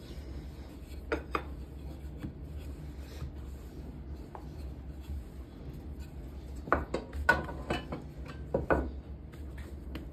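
Wooden rolling pin rolling a thin sheet of dough on a countertop: soft rubbing, with light knocks and clicks, two about a second in and a cluster between about six and a half and nine seconds.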